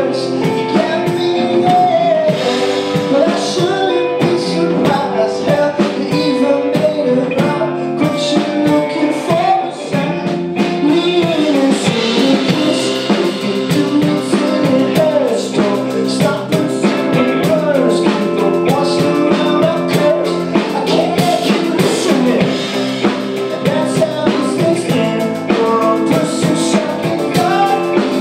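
Rock band playing live: a man singing over electric guitars, electric bass and a drum kit.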